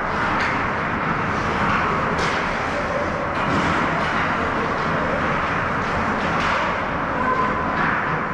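Youth ice hockey game on the rink: a steady rush of noise with several sharp clacks scattered through it, from skates, sticks and puck on the ice.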